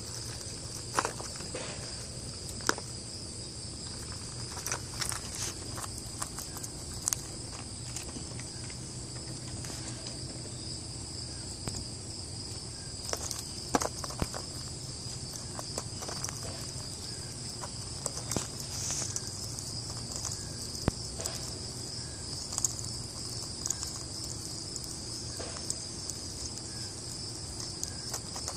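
Steady high-pitched insect drone, with short irregular clicks and rustles of peanut shells as chipmunks pick peanuts out of a plastic bowl.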